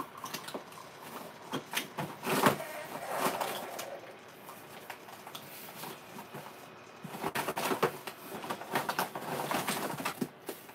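Plastic single-serve coffee pods being handled and slotted into a plastic pod rack: a run of light clicks and rattles, busiest about two seconds in and again from about seven seconds in.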